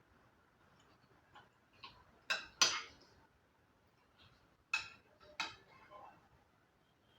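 Cutlery clinking against a plate during eating: a few sharp clinks with a brief ring, the loudest pair about two and a half seconds in and another pair about five seconds in, with fainter clicks between.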